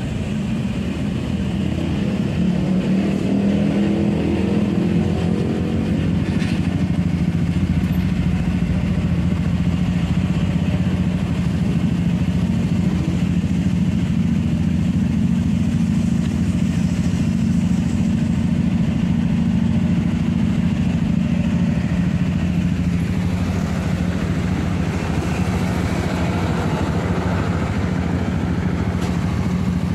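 Vehicle engine on the move, speeding up in the first few seconds and then running at a steady cruise, with road and wind noise; the engine note eases lower about two-thirds of the way through.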